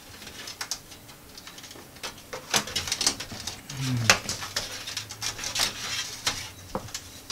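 Irregular clicks, knocks and scrapes as a case fan is worked loose and pulled out of a desktop computer case. A short falling vocal sound comes about four seconds in.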